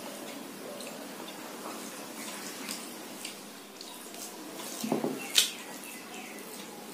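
Fingers mixing rice with a soft mashed vegetable paste on a stainless steel plate: soft wet squishing and light clicks against the steel, with a louder knock about five seconds in.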